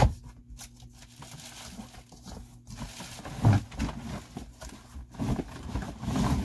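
Cardboard box being handled: a sharp knock right at the start, then rustling and irregular bumps from about three seconds in as the box is shifted.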